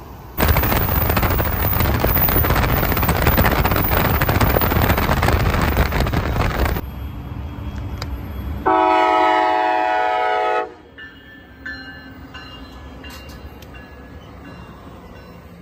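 Amtrak Pacific Surfliner passenger train passing close: a loud rushing rumble of the cars for about six seconds that stops suddenly, then, a couple of seconds later, one steady chord-like horn blast lasting about two seconds, followed by a quieter rolling sound.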